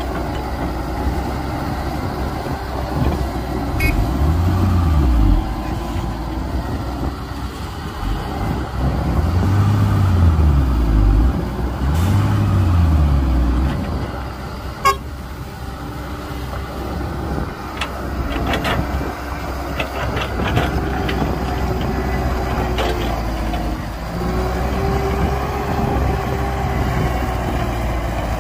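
Heavy diesel construction machinery running, its engine note rising and falling three times in the first half, with a sharp click about halfway through and a few lighter clicks after.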